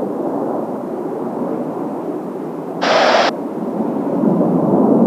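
Kawasaki T-4 jet aircraft in flight, a steady engine rumble that grows louder near the end. A short burst of hiss cuts in about three seconds in.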